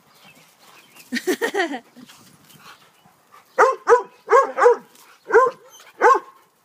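A Rottweiler barking repeatedly at the spray from a garden hose, about two sharp barks a second from a little after halfway, with a short whine about a second in.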